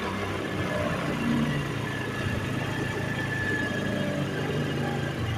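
Honda Aviator scooter's single-cylinder four-stroke engine idling steadily while the carburettor's idle-speed screw is turned down, its speed easing from a fast idle toward normal idle.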